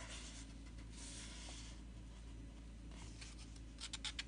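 Faint rustling of the old book's paper as hands move over the pages, twice in the first two seconds, then a quick run of dry crackles near the end as a page begins to be handled.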